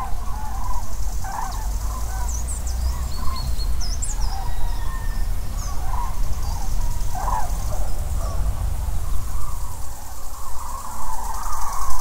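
Common cranes calling with repeated trumpeting notes that thicken into a continuous chorus near the end. Thin high chirps of small birds come in the first half, over a steady low rumble.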